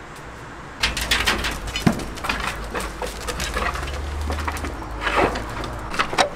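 Poultry in a wire-mesh coop calling, a busy run of short calls that starts about a second in, over a low steady hum, as they are fed bread.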